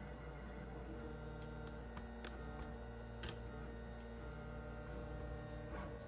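Lulzbot Mini 3D printer's stepper motors whining as the head and bed move, holding a few steady tones that change pitch every second or so, with a few faint clicks.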